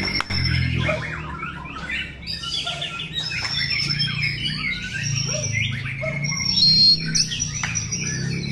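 Several caged white-rumped shamas (murai batu) singing at once: dense, overlapping whistles, trills and chirps with rapid pitch glides, loudest about seven seconds in.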